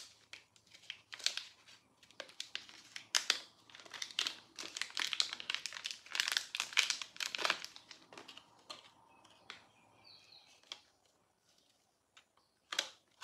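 Thin plastic packaging crinkling and crackling as it is handled and opened, in dense bursts for about eight seconds, then only a few faint rustles and clicks, with one sharper crackle near the end.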